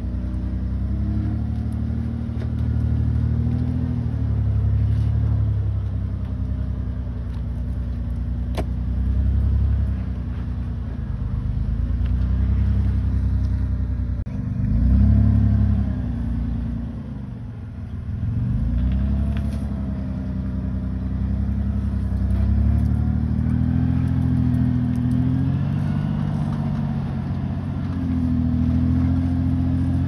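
A vehicle engine running under changing throttle, its pitch rising and falling as it revs and eases off, with a sharp click about eight seconds in.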